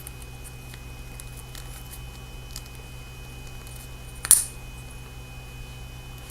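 Pocket clip being worked off a small flashlight by hand: faint ticks and scrapes, then one sharp click about four seconds in, over a steady background hum.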